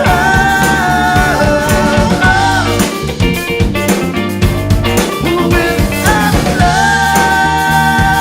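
Pop-rock covers band playing, with drum kit, bass and guitar under long held high notes that bend at their ends.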